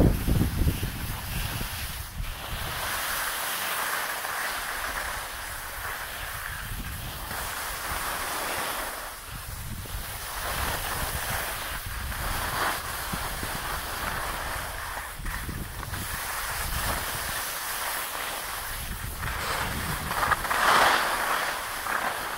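Skis hissing and scraping over packed snow in swells that rise and fall with the turns, loudest about twenty seconds in, with wind buffeting the microphone of a skiing camera.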